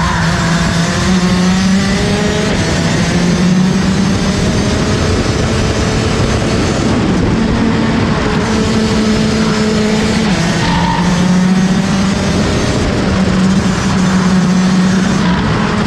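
Rotax DD2 kart's 125 cc two-stroke engine running hard at race pace, heard on board. Its pitch rises and falls repeatedly, with a steady hiss behind it.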